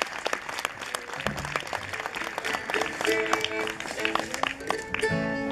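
Audience applauding, with a few scattered notes from a string band's instruments (fiddle, mandolin, guitar, upright bass): a low note about a second in, then short held notes and a strummed chord near the end.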